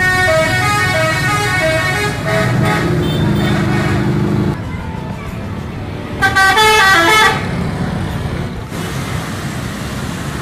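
Tour buses sounding musical multi-tone 'telolet' horns over the rumble of their engines. A stepping horn tune plays for the first four seconds or so, and another short horn tune comes a little after six seconds.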